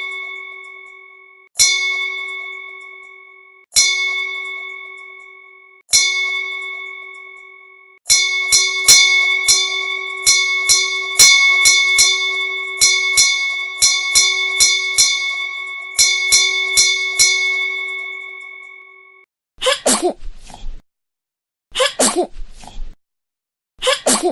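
A bell struck four times about two seconds apart, each ring dying away, then rung rapidly for about ten seconds and left to fade. Near the end a baby sneezes several times in quick short bursts.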